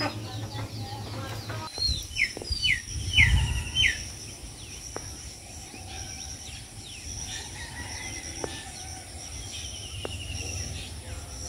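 Outdoor rural ambience: a bird gives a quick series of four chirps about two to four seconds in, over a steady high insect buzz, with a few faint clicks later on.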